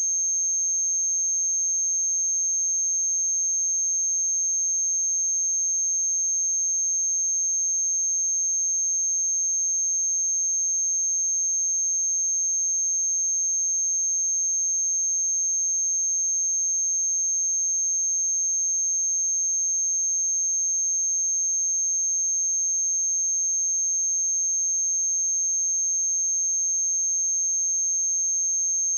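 A steady pure sine-wave test tone at 6388 Hz: one high-pitched unbroken whistle at constant loudness.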